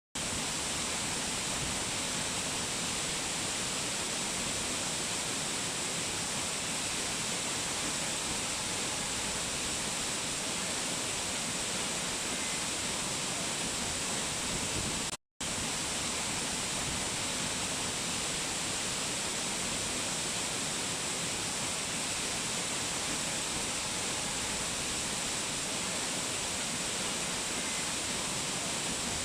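Waterfall water rushing with a steady, even roar. It cuts out for a split second about halfway through.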